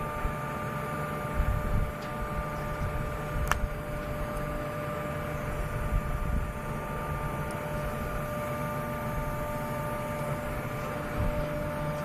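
Steady drone of drilling-rig machinery during a well test: a low rumble under several constant whining tones, with one sharp click about three and a half seconds in.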